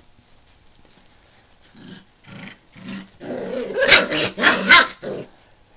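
Five-week-old puppies growling and yapping as they wrestle. It starts softly about two seconds in and builds to a loud scuffle about four seconds in, with two sharp yelps near the end.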